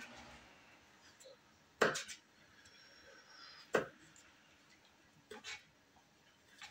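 Knife cutting a small pepper on a plate: three short, sharp knocks of the blade on the plate, about two seconds in, near four seconds and a double one at about five and a half seconds, with faint slicing sounds between.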